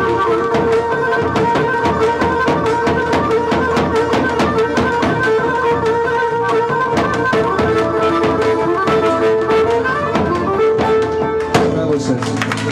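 Traditional folk dance music, instrumental and loud: a drum keeps a fast, steady beat under a sustained melody line. Near the end the tune changes and a new passage comes in with lower notes.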